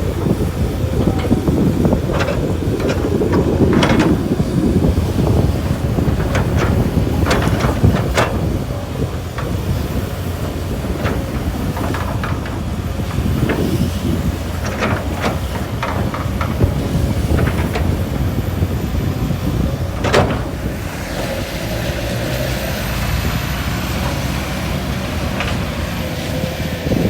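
Hydraulic excavator at work loading a dump truck: its diesel engine runs steadily under load while a series of metallic clanks and knocks sound, most of them in the first third and one sharp one about twenty seconds in.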